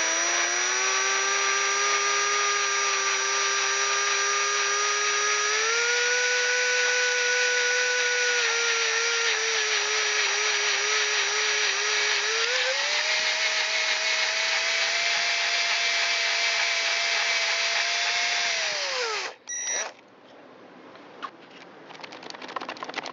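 Electric drill running at a slow, varying speed, drilling out a broken allen bolt with a hard double-ended bit; the motor's whine steps up and down in pitch several times. About 19 seconds in it winds down with a falling pitch and stops, followed by a few light clicks.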